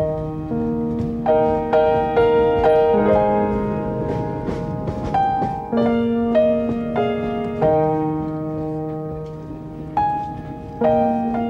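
Background piano music: a slow melody over held chords, each note struck and then fading.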